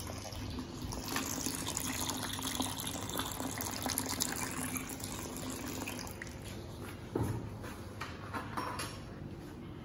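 Tap water running into a ceramic sink, a steady splashing rush that eases off after about six seconds. A short knock comes about seven seconds in.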